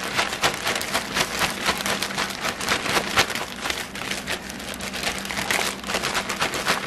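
Clear plastic bag of fried apple slices being shaken hard, a fast, continuous crinkling of plastic with the pieces tumbling inside.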